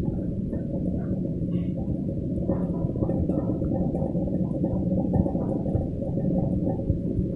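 Wet grinder running steadily, a continuous low sound from its grinding stones working a wet mix.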